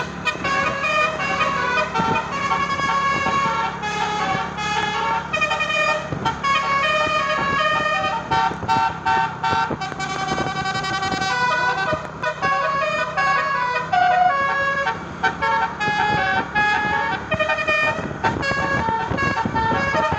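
Tour bus's 'telolet basuri' musical air horn playing a fast, stepping melody of horn notes, over a steady low hum that fades out near the end.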